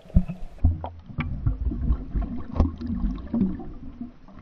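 Muffled underwater sound in a swimming pool, heard through a submerged waterproof camera housing: a low rumble of moving water with scattered knocks and clicks.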